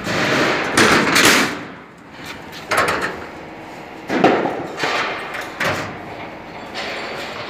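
Sheet-metal hood of a multi-blade rip saw being unlatched and swung open by hand: several loud bangs and scrapes of metal over the first six seconds.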